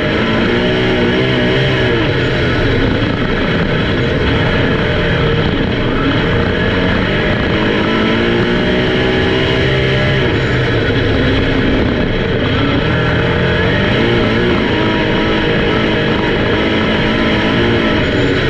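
Several race car engines running hard around an oval, their pitch sliding up and down as the cars pass and lift for the corners.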